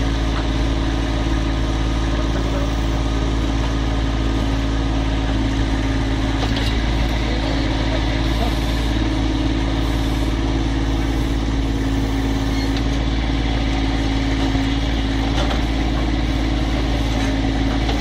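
Kubota B2420 tractor's three-cylinder diesel engine running steadily at a constant pitch while its backhoe digs into soil.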